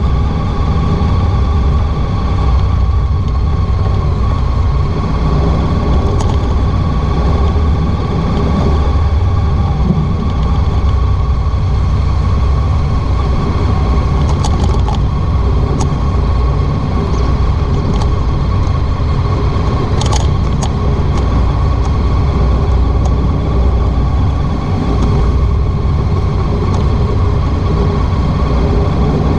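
Honda ST1300 Pan European's V4 engine running steadily while riding, mixed with wind and road noise, with a few light clicks or rattles about halfway through and again a little later.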